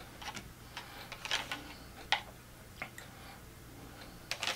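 A metal utensil clicking and scraping against a plastic bowl of sauce, in short irregular clicks, the sharpest about two seconds in and a quick pair near the end.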